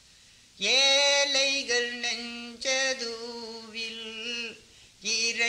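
A man singing a Tamil devotional song with no accompaniment, in long held notes. The singing starts about half a second in and breaks off briefly near the end.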